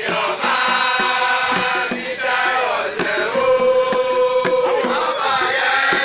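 Male voices chanting and singing in long held notes over a steady drum beat.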